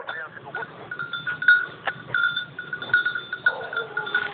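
Bell on a hunting dog's collar ringing over and over in short, uneven strikes as the dog moves about nosing a scent trail.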